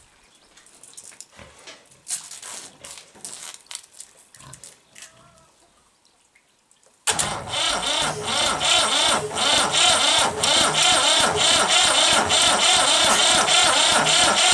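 Small clicks and knocks of handling, then about seven seconds in a Ford 4000 three-cylinder diesel engine suddenly begins turning over on its starter motor, loud with an even, rapid beat.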